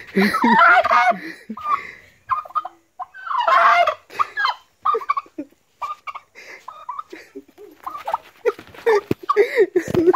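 Domestic tom turkey gobbling: a long rattling gobble at the start and another about three seconds in, followed by a string of short clucks and calls. The bird is agitated and angry, aggressive towards the person beside it.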